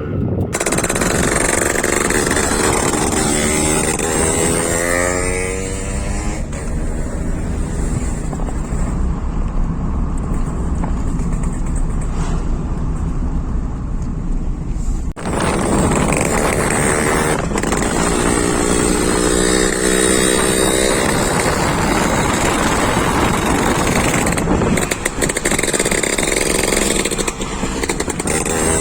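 Yamaha RX100's two-stroke single-cylinder engine running loudly and being accelerated again and again. Its pitch climbs several times, with a brief break about halfway through.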